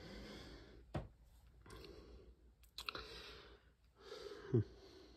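A person breathing in and out about once a second, with a couple of sharp clicks and, about four and a half seconds in, a short knock that drops in pitch.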